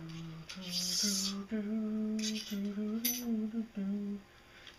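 A man humming a wandering tune in held notes that step up and down. A few light metallic clinks and scrapes come from the metal rod and fittings he is handling.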